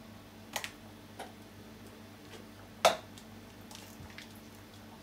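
A few separate sharp clicks and crackles of a plastic-wrapped package being handled and opened, the loudest about three seconds in, over a faint steady low hum.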